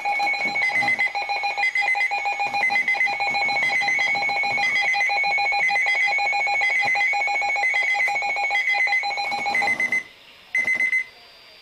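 Emergency alert attention signal: a loud electronic tone pattern that alternates between high pitches over a steady lower tone. It announces an incoming severe weather bulletin. It stops about ten seconds in, with one short burst a moment later.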